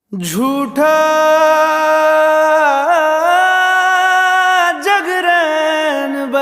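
Male voice singing long, drawn-out notes of a slow Hindi film song, with small turns in pitch about three and five seconds in.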